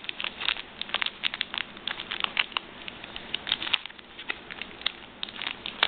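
Stiff plastic blister packaging being handled and pried at, giving irregular crackles and sharp clicks several times a second.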